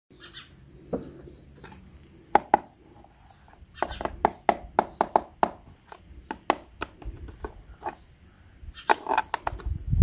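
Sharp clicks and taps of hard plastic as a toy's battery compartment and AA battery are handled, in quick irregular runs. Birds chirp briefly in the background.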